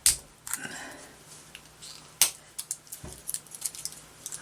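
A small battery's packaging being opened by hand: a few sharp clicks and snaps with a short crinkle of packaging about half a second in.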